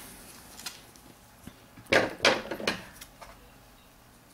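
Handling noise from a plastic fashion doll and its clothes: scattered light clicks, then a quick burst of several sharper knocks and clatter about two seconds in.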